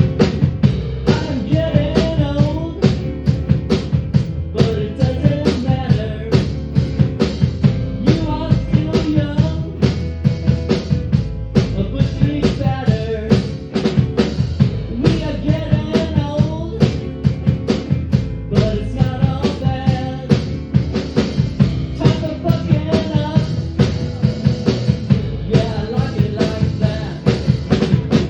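Rock band playing live: a drum kit keeping a steady beat under electric guitars and bass.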